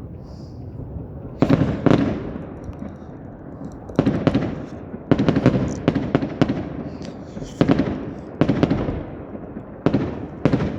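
Fireworks going off: about a dozen sharp booms at irregular intervals, some coming in quick clusters, each followed by a rolling rumble as it dies away.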